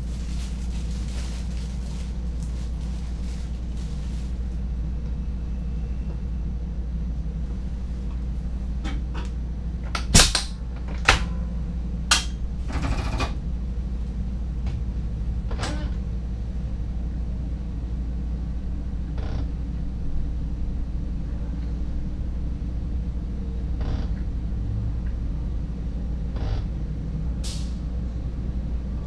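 Steady low hum inside the driver's cab of an NS DDZ double-deck electric train, with a few sharp clicks and knocks about ten to thirteen seconds in.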